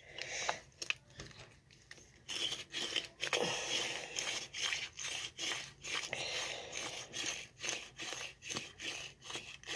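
Handheld herb grinder being twisted back and forth, its teeth crunching and scraping through dry cannabis bud. The grinding starts about two seconds in and goes on in quick repeated scraping strokes.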